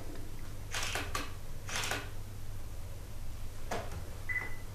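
Faint room tone with a steady low hum, a few brief clicks, and one short high beep about four seconds in.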